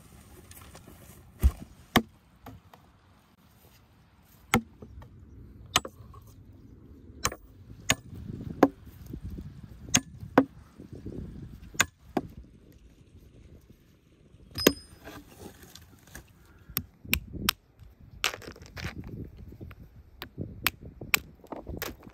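Axe chopping and splitting firewood on a chopping block: a series of sharp wooden blows at uneven intervals, coming quicker in the last few seconds.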